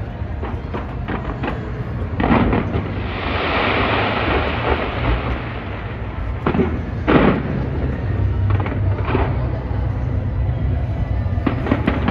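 Fireworks going off: a run of sharp bangs, then a loud crackling hiss from about three to six seconds in, two heavy bangs about seven seconds in, and a quick string of bangs near the end, over a steady low rumble.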